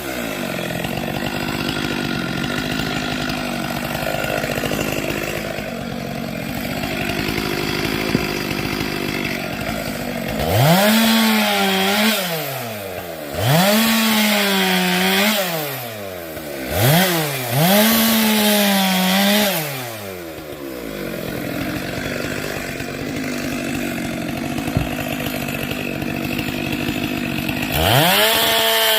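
Chainsaw engine running at a low steady speed, then revved hard four times in quick succession, each time rising sharply in pitch, holding and dropping back, with one more rev near the end.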